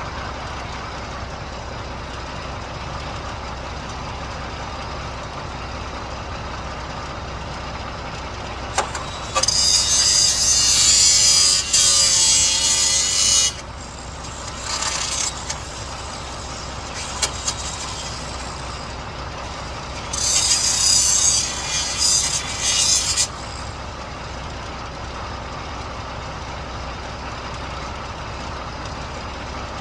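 A steady low engine hum, broken twice by loud bursts of high hissing noise lasting about three to four seconds each.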